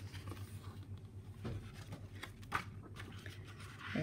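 Faint rustle and a couple of soft taps as the pages of a large picture book are handled and turned, over a low steady hum.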